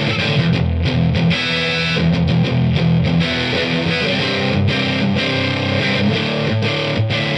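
Distorted electric guitar playing a continuous riff with held notes, through a Limetone Audio Focus NX compressor pedal ahead of the distortion.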